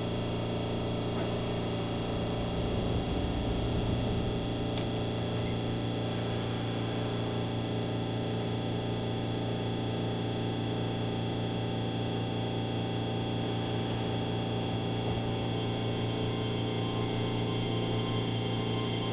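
Cabin sound of a Keihan 3000 series electric train standing at a station: a steady hum from its onboard equipment, with a few faint clicks.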